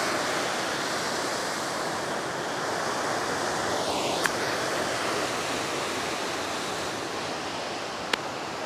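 Ocean surf breaking on a rocky shore, a steady rushing wash. About four seconds in, a single sharp click of a golf club striking the ball on a short shot from the grass, and another faint click near the end.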